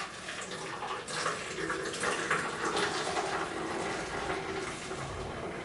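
A man urinating: a steady stream of liquid splashing, with a few light knocks in the first half.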